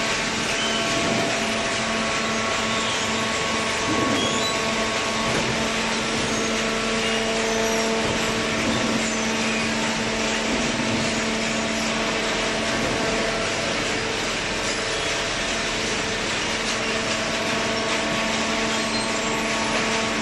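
Automatic cardboard baler and its feed conveyor running: a steady mechanical din with a constant motor hum.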